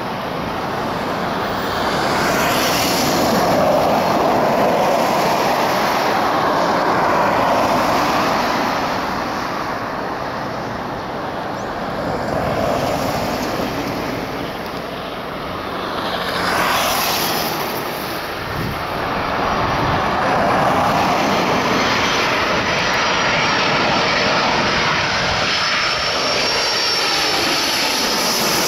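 Airbus A330-243 on final approach, its Rolls-Royce Trent 700 turbofans making a loud, steady rushing jet noise that swells and eases as the airliner closes in. A thin high whine joins it over the last few seconds as the jet comes overhead.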